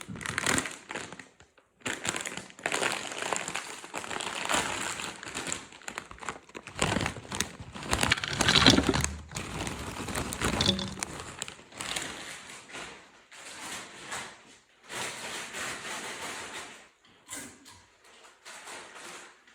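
A potato chip bag crinkling and chips being crunched while eaten. The sound comes in irregular spells with brief pauses, and the loudest, fullest crunch is about eight and a half seconds in.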